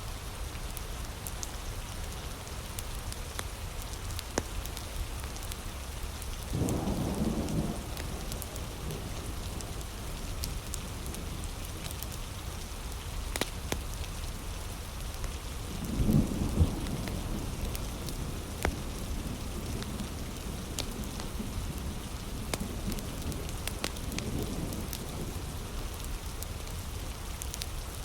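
Steady heavy rain on leaves and the ground, scattered with sharp pops and crackles from a wood fire. Low rumbles of thunder come twice, about 7 and 16 seconds in, with fainter rumbling later.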